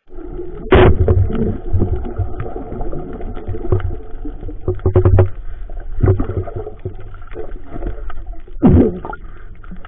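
Muffled underwater sound picked up by a camera in a waterproof housing: a steady low rumble with scattered knocks and gurgles as the diver moves. The loudest gurgle comes about a second in, and another near the end.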